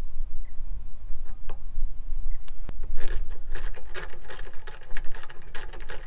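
Rapid, irregular clicking and ticking of a hand tool and metal parts as a combine header's float (height) sensor is fitted and fastened, thickening about halfway through, over a steady low rumble.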